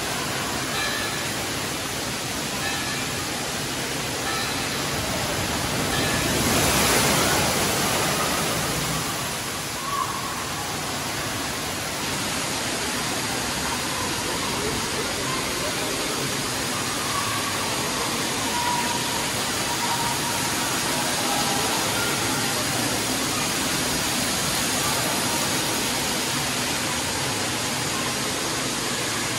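Indoor water park ambience: a steady wash of falling and splashing water from the play structures, swelling briefly about seven seconds in, with faint distant voices.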